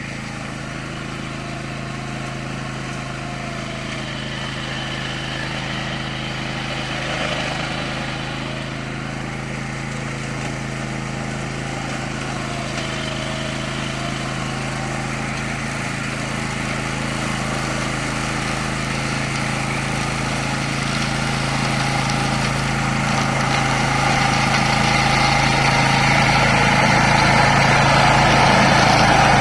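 13 hp Tosaka petrol engine of a remote-controlled robotic lawn mower running steadily, growing gradually louder.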